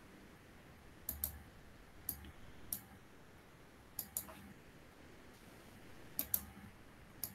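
Faint computer mouse clicks, single and in quick pairs, spaced a second or two apart.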